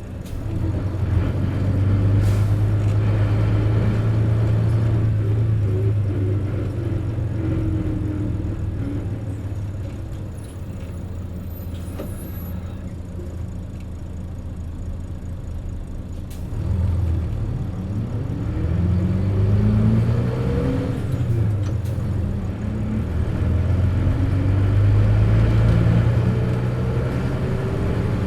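Mitsubishi Fuso P-MP218K Aero Star bus accelerating, its engine drone joined by rising whining tones; it eases off into a quieter stretch in the middle, then accelerates again about two-thirds of the way through. The whine is the strong odd noise this particular bus is known for.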